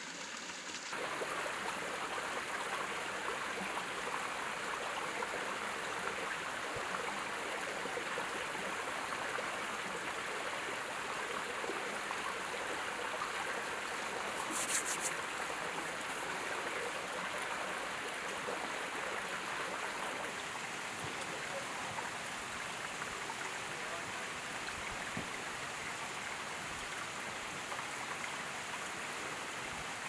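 Mountain stream running over rocks: a steady rush and splash of water, a little louder from about a second in. A brief high-pitched sound cuts through about halfway.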